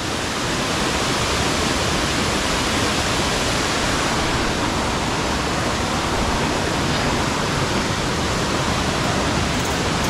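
A 60-metre waterfall pouring steadily: an even, unbroken rush of falling water.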